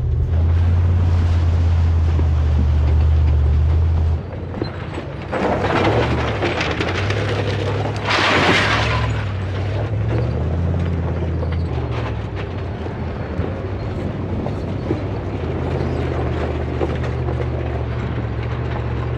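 Wrecker towing a pickup down a rocky dirt trail: a steady low rumble of engine and tyres on gravel, with two louder rushes of noise about six and eight and a half seconds in.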